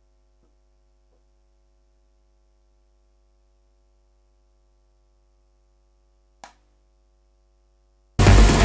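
Near silence with a faint mains hum and a single click, then, in the last half-second, loud playback of an unfinished trance track with a heavy low end comes in suddenly.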